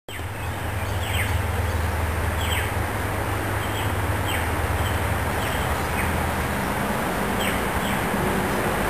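UD tow truck's diesel engine idling with a steady low rumble, while a bird repeats short, falling chirps every second or so.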